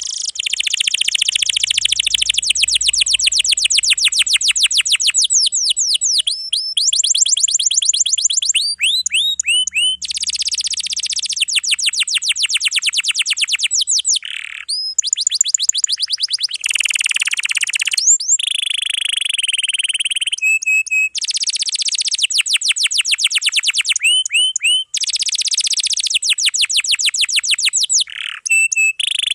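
Domestic canary singing a long, dense song of fast rolls: rapid runs of identical high sweeping notes, phrase after phrase with only brief breaks between them.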